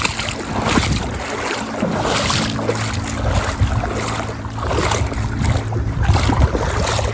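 Water splashing at a small river crossing, mixed with wind buffeting the microphone, with irregular splashes about every half-second to second.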